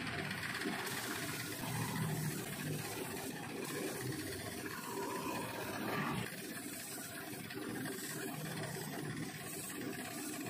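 Road traffic passing: small motorbike and scooter engines running, a steady noisy background.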